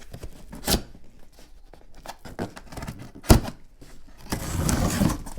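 A cardboard box being opened by hand. There are scattered clicks and a sharp knock about three seconds in, then rustling and scraping of tape and cardboard near the end.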